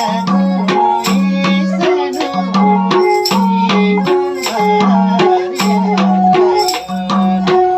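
Nepali folk music: a sarangi melody over a steady madal drum beat.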